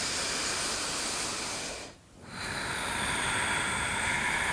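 Two long, deep audible breaths, a hissing rush of air without voice, with a short pause between them about two seconds in.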